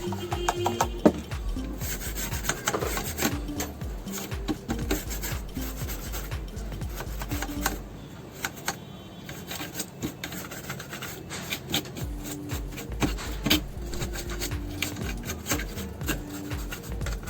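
Irregular rubbing and scraping with many small clicks from hand work on a motherboard, over faint background music.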